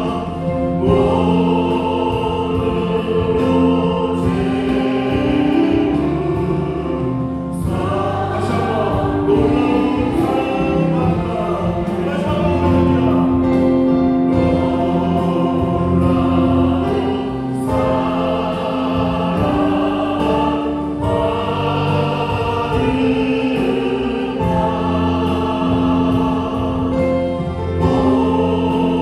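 Church worship music: a choir singing a hymn over a band of synthesizer keyboard, bass guitar and drums.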